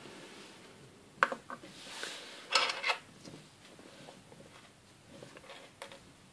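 Small Playmobil plastic parts handled and set down on a tabletop: a couple of sharp clicks a little after a second in, a brief rattling scrape in the middle, then soft scattered taps.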